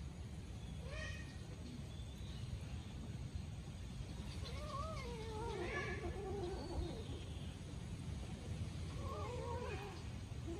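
A kitten meowing while it eats: a short call about a second in, a longer wavering call around the middle, and another wavering call near the end, over a steady low background noise.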